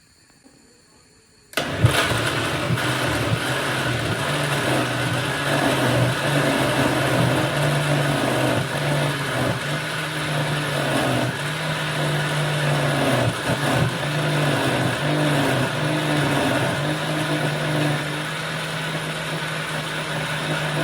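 Electric blender starts suddenly about one and a half seconds in and runs steadily at full speed, blending chopped celery, water and fruit into juice, then cuts off abruptly at the end.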